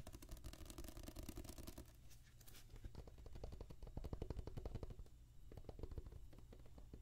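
Fingernails tapping and scratching in quick succession on a book's glossy cover, held right up against the microphone.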